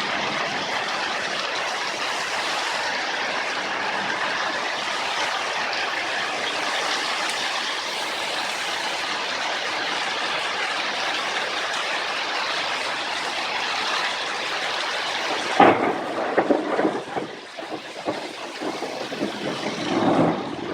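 Heavy rain falling in a steady, loud hiss. About fifteen seconds in there is a sudden loud knock, after which the hiss gives way to quieter, uneven sound.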